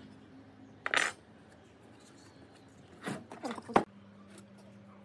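Metal square knocking, clinking and scraping against wood as it is set down and positioned for marking: one short clatter about a second in, then a run of scrapes and clicks ending in a sharp knock.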